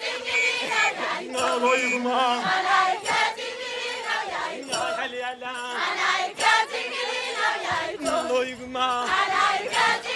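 A group of women and schoolgirls singing together while they dance.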